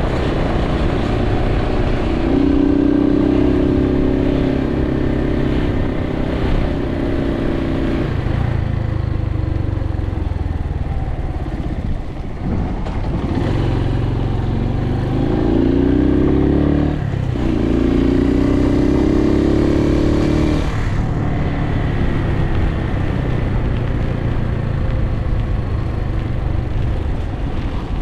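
Suzuki TU250X's single-cylinder engine on the move, its note climbing as it pulls through the revs and dropping briefly at gear changes, about halfway through and again a little later. Steady wind and road noise run underneath.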